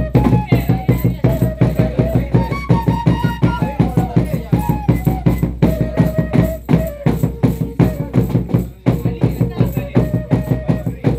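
Live traditional Andean dance music: a melody of held notes that steps up and down, over a fast, even drumbeat of about five strokes a second.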